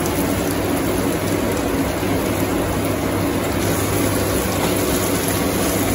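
Onions just added to hot oil in a pan, sizzling steadily.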